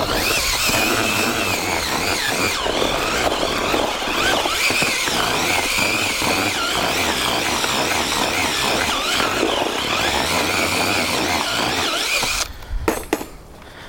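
Power drill with a mixing whisk running steadily in a bucket, mixing groundbait and leam together, with a wavering motor whine. It stops abruptly about twelve seconds in.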